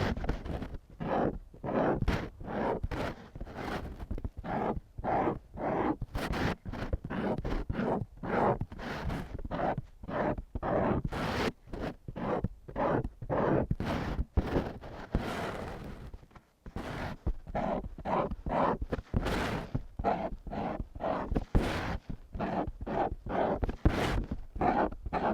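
A drawing tool scratching lines across paper: a steady series of short scratchy strokes, about one or two a second, some starting with a sharp tap as the tip touches down.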